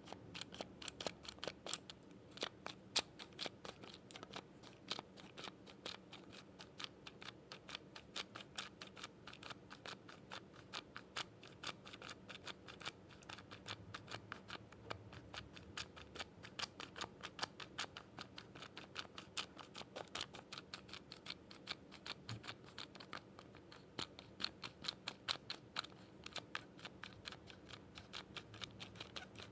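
Close-miked ASMR clicking: a steady run of small, sharp clicks, about three or four a second.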